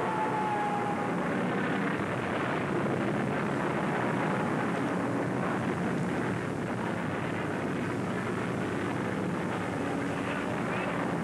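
Aircraft engines droning as a dense, steady noise, with a faint tone falling in pitch in the first second.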